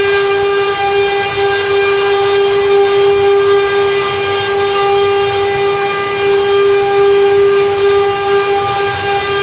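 CNC wood-carving router spindle running with a steady whine while cutting.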